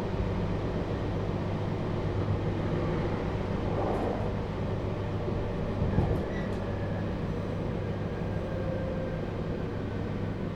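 JR Hokkaido 721-series electric train's motor car running, heard from inside: a steady low drone with the faint held tones of its Toshiba GTO inverter drive. There is one sharp knock about six seconds in.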